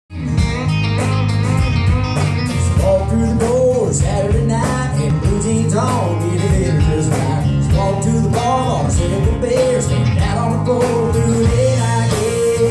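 Live country-rock band playing the instrumental intro of a song: electric guitars, bass guitar and drum kit, with a steady beat and a bending guitar melody.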